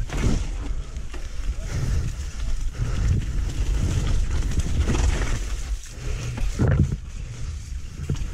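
Downhill mountain bike descending a wet, rough trail: a steady low rumble of wind buffeting the camera microphone, with the bike knocking and clattering over the ground.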